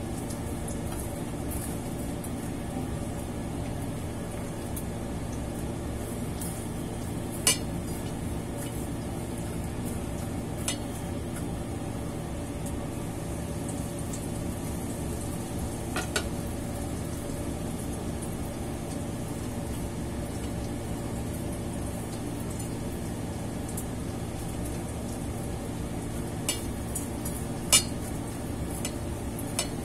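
Breaded sweet potato rolls frying in oil in a pan, a steady sizzle over a low hum, with several sharp clinks of utensils against the pan and bowls, the loudest about seven seconds in and near the end.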